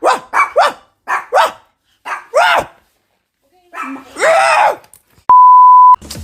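Toy poodle barking: about seven quick, high-pitched barks, then a longer drawn-out bark about four seconds in. Near the end a steady electronic beep sounds for just over half a second.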